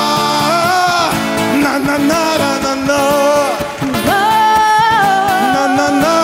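A man and a woman singing long, held, wavering notes together over an acoustic guitar played in a steady rhythm.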